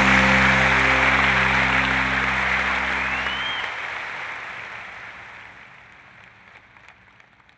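Closing music with held low notes over audience applause, the whole fading steadily away. The low notes drop out about three and a half seconds in, and the applause thins out to almost nothing near the end.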